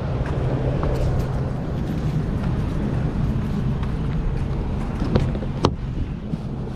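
Pickup truck engine running steadily, with two sharp clicks just past five seconds in.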